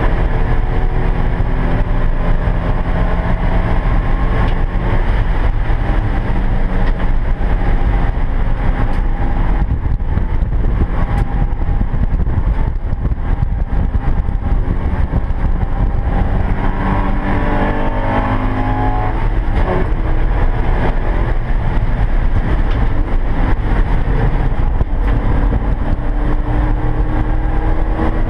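Porsche 944 race car's four-cylinder engine heard from inside the cockpit at racing speed, under heavy road and wind noise. The engine note climbs under acceleration about two-thirds through, breaks off, and climbs again near the end.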